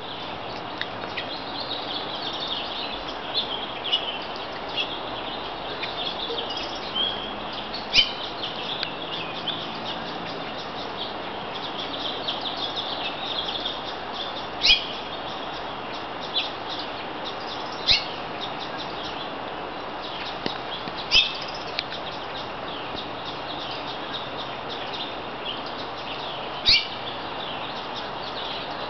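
Songbirds chirping and calling: a busy, continuous run of high twittering, with several sharper, louder single chirps standing out every few seconds, over a steady background hiss.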